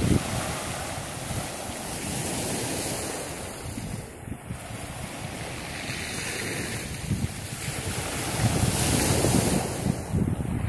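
Sea waves breaking and washing up a pebble beach, the surf swelling louder toward the end, with wind buffeting the microphone.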